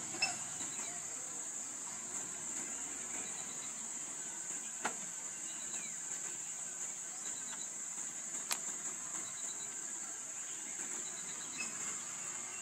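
Steady high-pitched drone of insects, with faint short chirps in little runs and two sharp clicks, about five and eight and a half seconds in.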